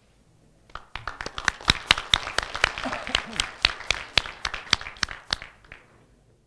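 Audience applauding: the clapping starts about a second in, with a few sharp, loud claps standing out, and dies away near the end.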